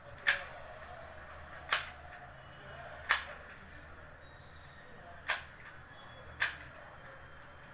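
MoYu RS3M 2020 magnetic speedcube's layers being turned to test corner cutting, each turn ending in a sharp click as the magnets snap the layer into place; five clicks, one to two seconds apart.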